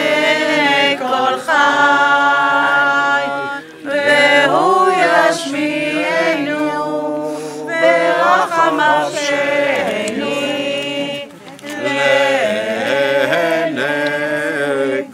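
A group of people singing together unaccompanied, on slow held notes, with short pauses between phrases about four seconds in and again past eleven seconds.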